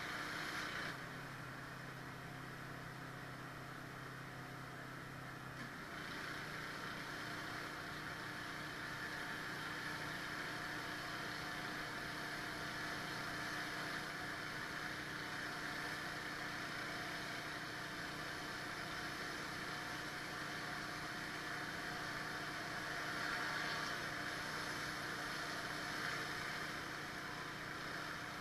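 Pressure washer engine running steadily, with the hiss of a surface cleaner spraying concrete. For a few seconds near the start the spray hiss drops away, leaving the engine's lower hum, then it comes back.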